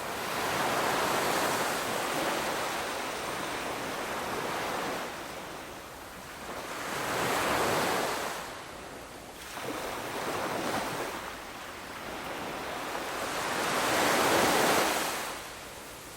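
Ocean waves breaking and washing in, a hissing wash that swells and fades in slow surges, the biggest about a second in, in the middle and near the end.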